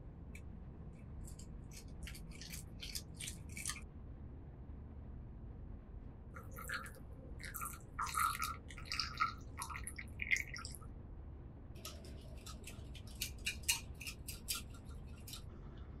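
Wire balloon whisk scraping and clicking against a white bowl in three bursts of quick strokes, mixing cream cheese and sugar with milk for cream cheese foam.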